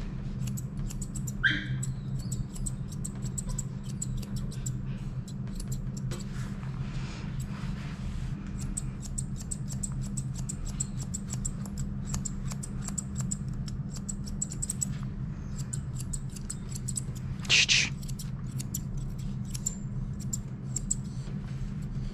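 Grooming shears snipping a dog's fur in quick runs of small clicks over a steady low hum, with a short high whimper from the dog about a second and a half in and a brief louder sound near the end.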